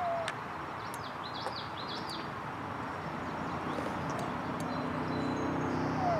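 A small bird chirping, a quick run of about half a dozen short high chirps about a second in, over steady outdoor background noise, with a faint low hum growing near the end.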